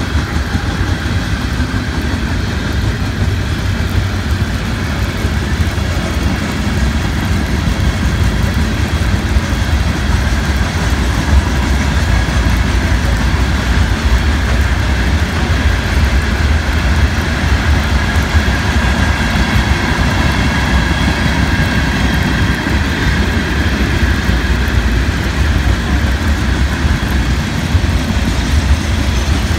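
CSX freight train rolling past, a steady rumble of wheels on rail mixed with the hiss of heavy rain.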